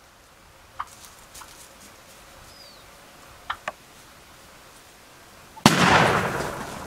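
A single shotgun shot about five and a half seconds in, loud and dying away over about a second. Before it, a few faint short clicks.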